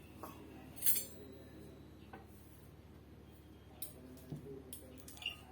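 Scattered light clinks and knocks of kitchenware being handled, the sharpest about a second in and a few smaller ones near the end, over a low steady hum.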